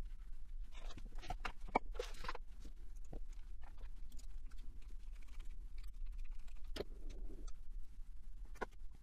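Small metal optical housing and a screwdriver being handled on a hardboard workbench: scattered clicks and light knocks, with a steady low hum underneath.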